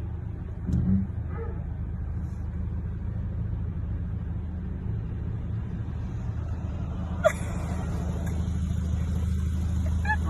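Steady low rumble of a car running, with one sharp click about seven seconds in.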